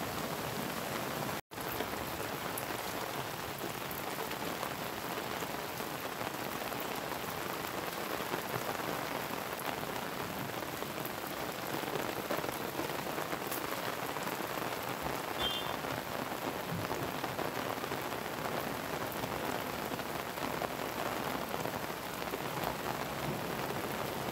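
Heavy rain falling steadily, with a brief dropout about a second and a half in.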